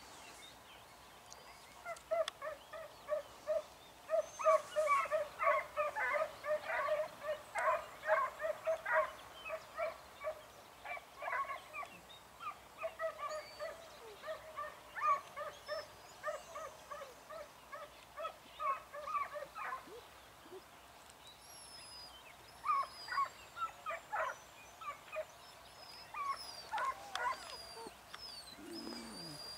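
A distant fox-hunting dog yelping on the chase, in long runs of short, high calls at about four or five a second. About two-thirds of the way in, these thin out into scattered yelps. Faint bird chirps sit above.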